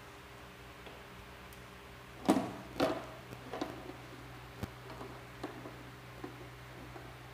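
Plastic clicks and taps of an oscilloscope probe being handled against the terminals of an electronics trainer panel: two sharper clicks about two and a half seconds in, then scattered lighter ticks, over a faint steady low hum.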